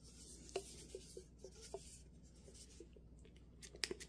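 A body-mist bottle's plastic pump sprayer being pressed: a brief hiss of spray at the start, then faint scattered clicks, with a cluster of sharper clicks near the end. The sprayer is not working well.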